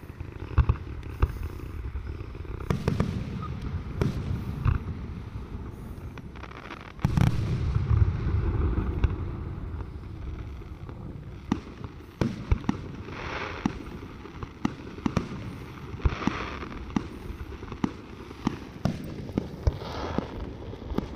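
Fireworks display: a string of sharp bangs and crackles from bursting shells, with a heavy rumbling boom about seven seconds in and several short hissing bursts in the second half.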